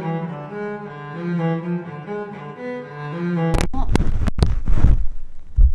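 Slow bowed-string background music with cello for about three and a half seconds. It cuts off abruptly, and a run of loud bumps and rubbing follows as the camera is grabbed and handled.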